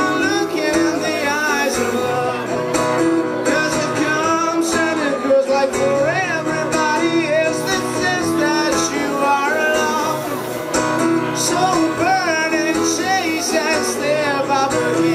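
Acoustic guitar strummed in a steady pattern, with a male voice singing a wordless melody over it.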